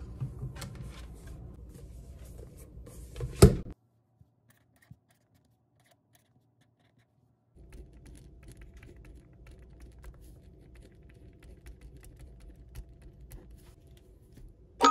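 Pen writing on a spiral planner's paper: faint scratching with small ticks, starting about halfway through after a few seconds of silence. Before the silence, faint rustling handling noise ends in one sharp knock.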